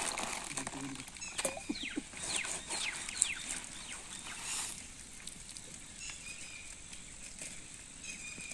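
Banana leaf being sprinkled with water and rubbed by hand, its surface rustling and pattering, while a bird calls a quick run of falling chirps from about one and a half to three and a half seconds in.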